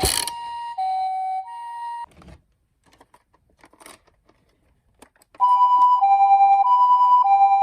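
Japanese ambulance two-tone siren: a clean high-low 'pee-po' alternating between two pitches, ending about two seconds in. After a short quiet gap with a few faint clicks it starts again about five and a half seconds in, switching pitch a little faster, about every half second.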